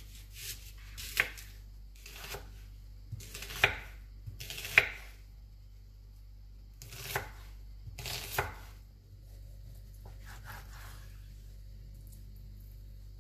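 A kitchen knife cutting through a peeled onion on a wooden cutting board: about six separate cuts, each a short crunch ending in a sharp tap as the blade meets the board, then a fainter cut later on.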